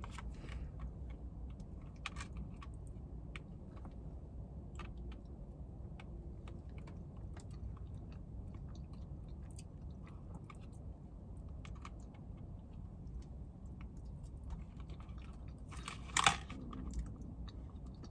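Close-up chewing of a mouthful of macaroni cheese with a crumb topping, with many small clicks and taps scattered throughout. A brief louder handling noise comes about 16 seconds in.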